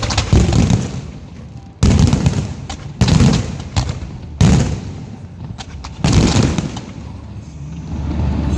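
Aerial fireworks shells bursting: five heavy booms come one to two seconds apart, each sudden and trailing off in a low rumble.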